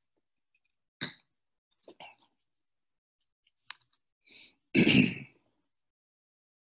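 A few faint breaths and a small click, then one short cough near the end.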